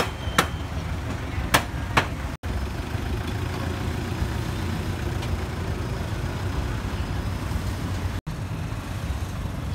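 Steady low rumble of street traffic, with four sharp knocks in the first two seconds.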